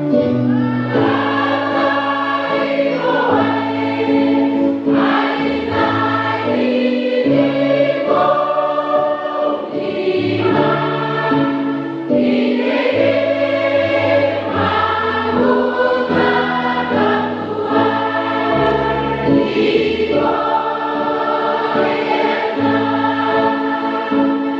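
Choir singing a church song in parts, moving in long held notes, as a practice guide for the bass voice.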